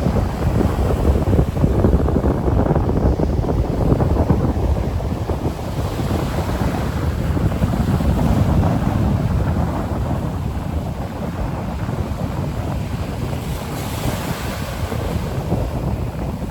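Wind buffeting the microphone over small Mediterranean waves washing onto a sandy beach. A breaking wave's hiss swells up near the end.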